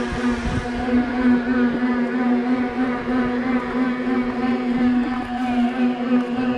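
Mountain bikes spinning on free-standing bicycle rollers, making a steady whining hum that wavers slightly in pitch with the pedalling.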